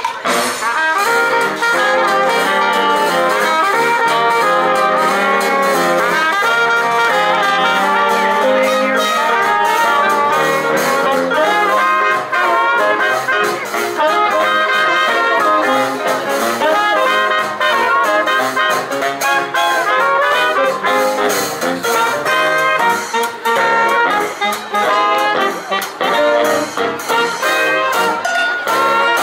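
Live street band of saxophones, trumpet and piano playing a jazz tune with a steady beat.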